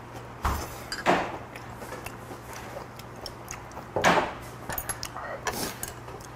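Glass and tableware knocking and clinking on a table as a soju bottle and shot glass are handled and set down, a few separate knocks with small clicks between, over a steady low hum.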